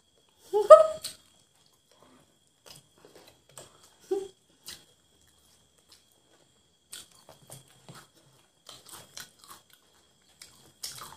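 Close-miked eating of fried chicken legs: scattered small crunches and wet clicks of chewing and of meat and fried coating being pulled apart by hand, coming more often in the second half. A short voiced sound about half a second in is the loudest thing, with a brief low vocal sound about four seconds in.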